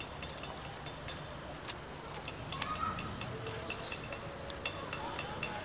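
Crisp fried snack being bitten and chewed: scattered sharp crunches and crackles, the loudest about a second and a half and two and a half seconds in.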